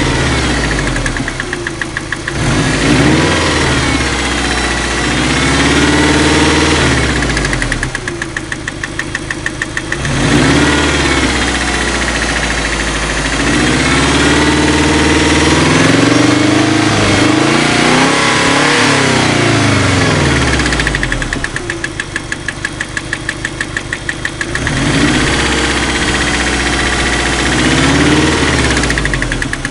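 Ford 2.0 turbo engine idling with a knock and being revved up and back down to idle several times, including one longer rev about two-thirds of the way through. Between the revs the idle carries a fast, even pulsing.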